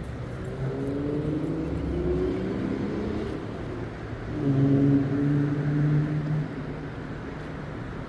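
A motor engine running at low revs, its hum rising and falling slightly, then louder and steadier from about four and a half seconds in for two seconds before easing off.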